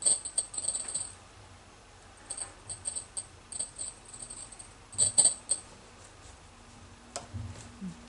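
Short bursts of high, bright jingling rattles, coming several times, the loudest right at the start and about five seconds in, with a few soft knocks near the end.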